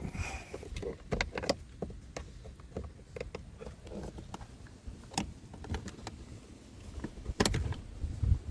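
Hands and tools working at plastic dashboard trim and a stuck clip: a string of light plastic clicks, taps and rattles, with a louder knock about seven and a half seconds in and another near the end.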